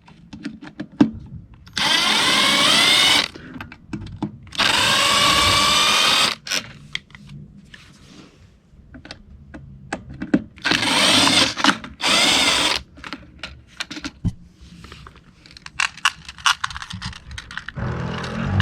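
Impact driver with a T27 Torx bit running in several bursts of one to two seconds, backing out the screws that hold a Stihl BR420C blower's recoil starter onto its engine cover. Clicks and knocks of handling come between the bursts.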